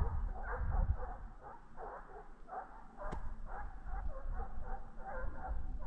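Hunting dogs giving voice on a hare's trail: a rapid, unbroken run of short yelping barks, several a second.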